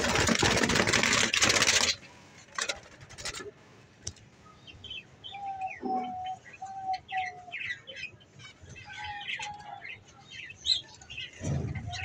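A dove flapping its wings hard inside a wire cage for about the first two seconds, then small birds chirping, with a short run of steady whistled notes in the middle.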